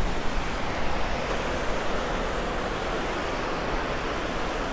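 Steady rushing of water cascading down the outflow below the Bhimtal dam, an even roar with no breaks.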